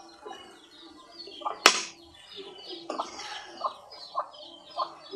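A metal spatula clicking and scraping against a wok of simmering fish curry, a few sharp knocks with the loudest about two seconds in. Chickens call in the background, a string of short, high, falling chirps.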